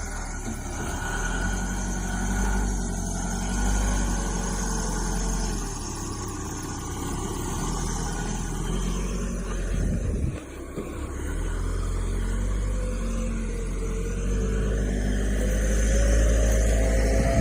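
Backhoe's diesel engine running steadily under load, rising in pitch and getting louder near the end.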